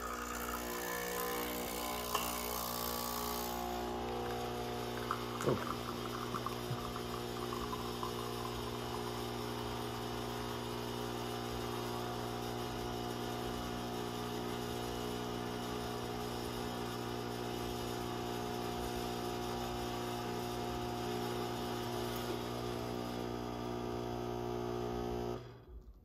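Nespresso Essenza Mini espresso machine's vibratory pump buzzing steadily as it brews a 40 ml espresso from a capsule, with a hiss during the first few seconds. The pump cuts off suddenly near the end as the shot finishes.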